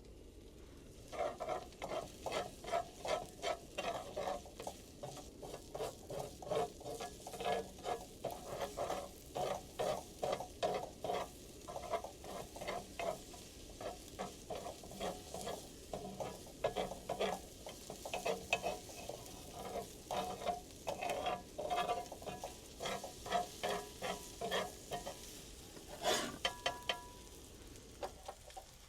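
Rhythmic scraping strokes, about two or three a second, with a short pause and one sharper scrape near the end.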